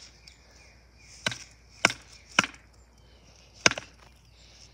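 Four sharp knocks from a toy weapon striking something hard: three about half a second apart, then a fourth after a gap of over a second.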